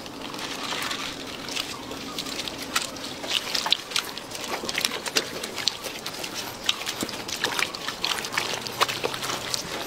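Wet clicking and smacking of thick sauce being rubbed by gloved hands over the skin of a whole crocodile carcass on a steel table, a quick run of many small sticky ticks.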